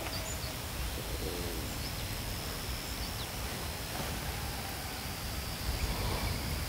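Outdoor lakeside ambience dominated by wind buffeting the microphone in a gusty low rumble, with a faint steady high-pitched tone and a few faint chirps above it.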